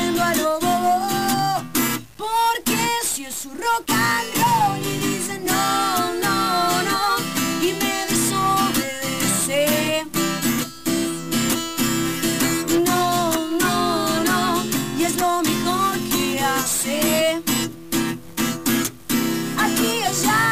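Acoustic guitar strummed live, accompanying a woman singing the melody. The strumming breaks off briefly about two seconds in and again near the end.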